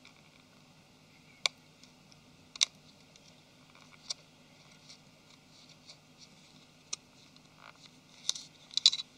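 Scattered small clicks and ticks of fingers working a thin antenna cable into its groove in a Nexus 5's plastic frame, with a short cluster of clicks near the end over a faint steady hum.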